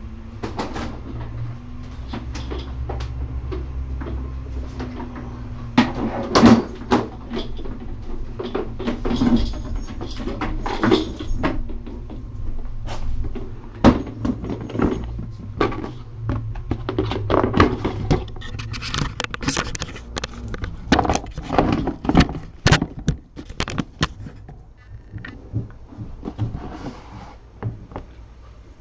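Irregular clicks, knocks and rustles over a steady low hum, beginning about six seconds in and thinning out near the end.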